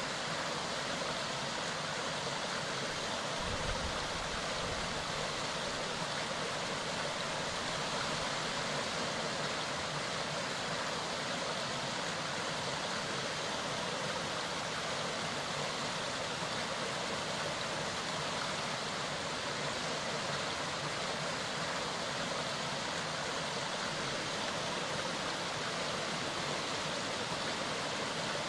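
Mountain stream flowing, a steady even rush of water over stones.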